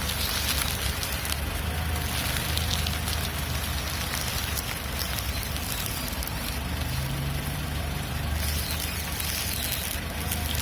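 Mitsubishi Lancer X steering being turned, giving a rubbery creak and crackle over a steady low engine hum, with a brief low drone about seven seconds in.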